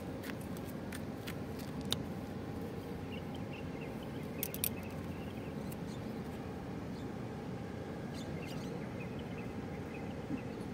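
Harbour ambience: a steady low rumble with a faint hum. A few light clicks come through, two close together about halfway, along with faint chirps.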